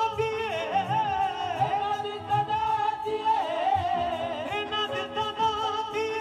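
Live Punjabi devotional song through a PA: a wavering, ornamented vocal line over sustained keyboard tones and hand-drum beats.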